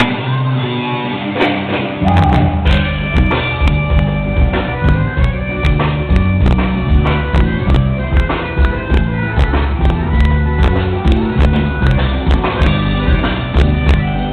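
Rock band music with a drum kit and bass; the full band comes in about two seconds in, with regular drum hits.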